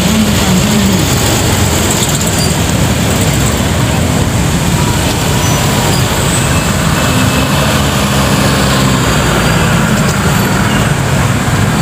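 Engines of classic cars driving slowly past one after another, a steady mix of engine noise that swells as each car goes by.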